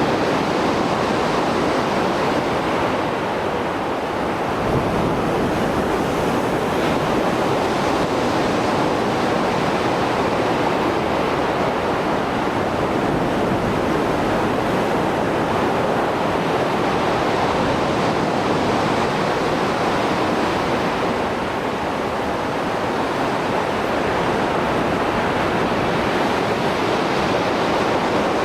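Mediterranean sea surf after a storm: waves breaking and washing over the shore in a continuous rushing wash, swelling and easing gently in loudness.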